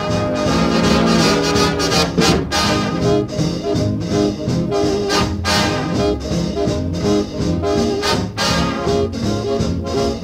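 Upbeat swing-style background music with brass instruments and a steady beat.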